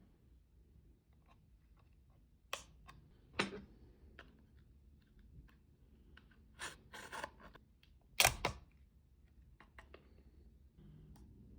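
Hands working on a small electronic recorder: scattered sharp clicks and short scraping rustles of small plastic and metal parts being handled. The loudest is a double click about eight seconds in, with a cluster of rustling just before it.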